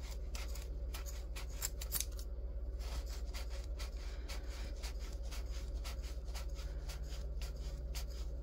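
Scissors snipping through the looped strands of a yarn pom-pom, a quick run of short cuts, about three a second.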